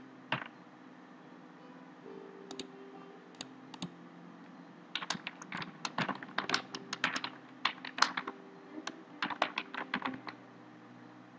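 Typing on a computer keyboard: a few scattered key clicks, then a quick run of keystrokes from about five seconds in until about ten seconds, over a faint steady hum.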